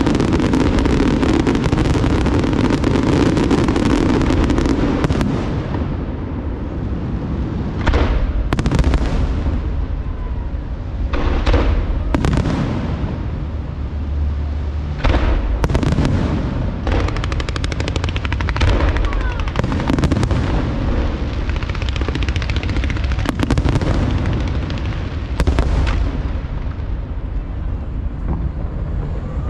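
Aerial fireworks exploding in a large display: a dense, continuous rumble for the first five seconds or so, then separate loud shell bursts following each other every second or two, each with a trailing echo.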